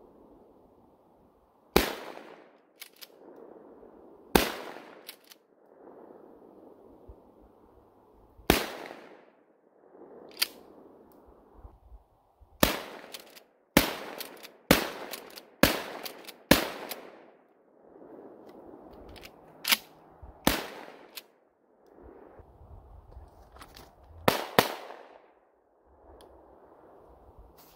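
Gunshots from a Mossberg 500 12-gauge pump-action shotgun, with lighter clacks of the pump being worked after some shots; about halfway comes a faster string of five shots about a second apart. Near the end, a Taurus G3C 9mm pistol fires two shots in quick succession.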